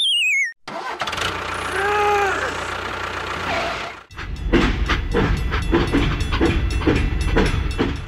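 A cartoon sound effect of a descending, wobbling whistle, then a dubbed tractor engine sound effect starting up and running, with a short rising-and-falling tone about two seconds in. From about four seconds it runs louder, with a rhythmic knocking.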